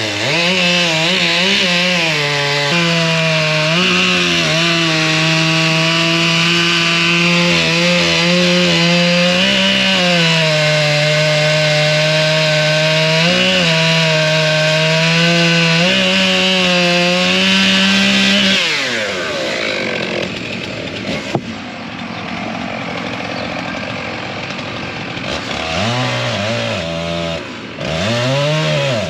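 Two-stroke chainsaw running at full throttle while cutting into a large tree stump, its pitch dipping briefly several times as the chain loads up in the wood. About two-thirds of the way through the engine drops away to a lower, quieter running, then is revved up and down in short blips near the end.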